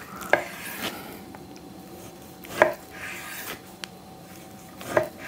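A knife slicing a raw pork collar into thick steaks on a wooden cutting board: quiet sawing strokes through the meat, with a sharp knock three times as the blade comes through onto the board.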